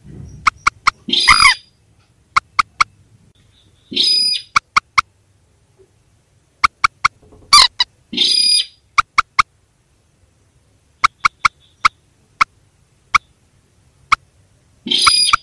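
Recorded calls of rails (mandar and sintar) played as a bird lure: quick sharp pips in runs of three or four, alternating about every three seconds with harsh, raspy calls about a second long.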